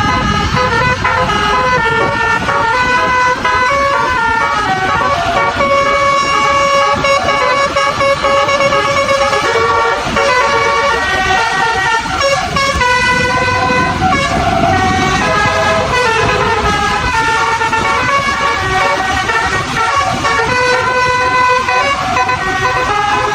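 Bus telolet horn, a set of air-horn trumpets, playing a melody of notes that step up and down, with notes breaking off and restarting: the trumpets coughing, not sounding cleanly.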